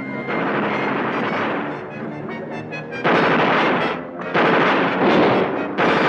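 Bursts of gunfire over dramatic background music: loud volleys about a third of a second in, at about three seconds, at about four and a half seconds and near the end, with a fast rattle between them.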